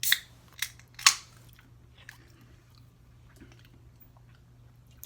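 Eating sounds at the table: a few sharp clicks and crunches in the first second or so, the loudest about a second in, then faint mouth and utensil ticks over a steady low hum.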